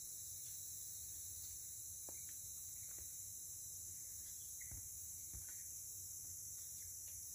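Steady high-pitched chorus of forest insects, with a few faint short clicks from about two seconds in.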